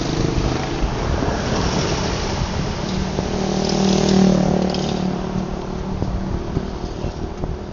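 Road traffic noise: a steady rush of engines and tyres, with one motor vehicle's engine swelling to its loudest about four seconds in, then fading.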